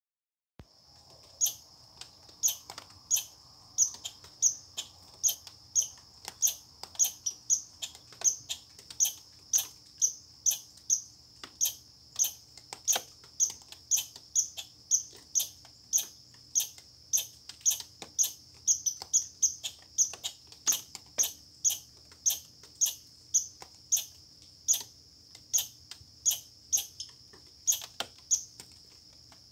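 Red squirrel calling: short, sharp, high-pitched chirps repeated steadily, about one and a half a second, over a faint steady high whine.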